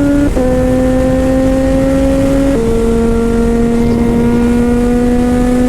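Kawasaki Z H2's supercharged inline-four running through an aftermarket Orion exhaust under hard acceleration, the note climbing slowly in each gear with two quick-shifted upshifts, about a third of a second in and again about two and a half seconds in, each dropping the pitch.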